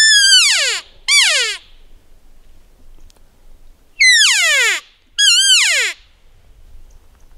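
Cow elk calls blown on a hunter's elk call: four loud mews, each a short squeal that falls steeply in pitch, two about a second apart at the start and two more about four and five seconds in.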